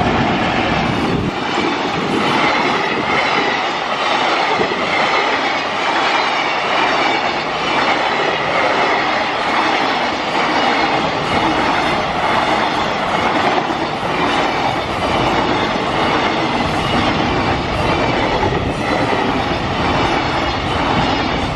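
Freight train of Koki container flatcars rolling past close by at speed, a steady loud rumble and rattle with the wheels clacking over rail joints.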